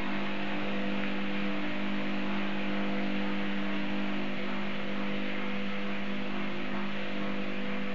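A steady machine hum, several fixed tones over a low drone, under a constant hiss, unchanging throughout.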